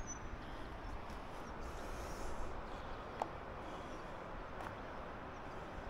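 Faint steady outdoor background with one short, sharp click about three seconds in and a fainter tick a little later, from hands working the top cover off a stopped Stihl 500i chainsaw.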